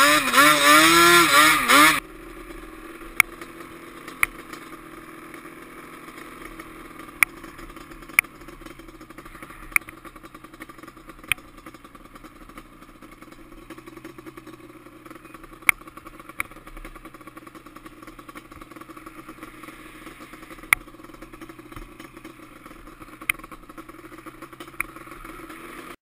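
Yamaha Banshee quad's two-stroke twin engine revving hard, its pitch rising and falling, for about two seconds. Then the sound drops suddenly to a faint, muffled steady drone, broken now and then by sharp single knocks.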